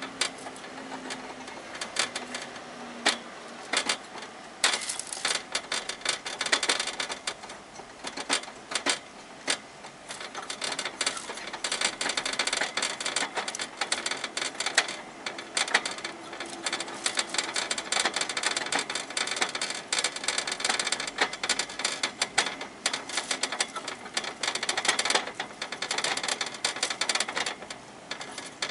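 Hamster gnawing at the wire bars of its cage: a fast, irregular clicking and rattling of teeth on metal, with sharper clacks now and then, going on almost without a break.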